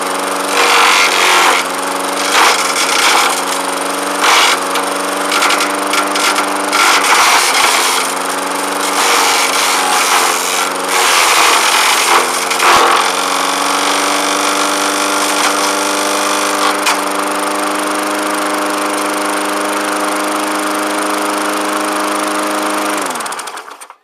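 Push lawnmower engine running while a tree branch is fed down through a hole cut in the deck onto the spinning blade, which chews it up with loud, rough, irregular grinding as the engine wavers under the load. About 13 seconds in the chipping stops and the engine runs on steadily, then winds down and stops near the end.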